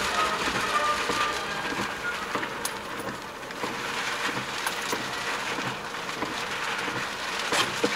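Rain falling on a moving car, heard from inside the cabin: a steady hiss of rain and wet-road tyre noise with scattered ticks of drops hitting the glass.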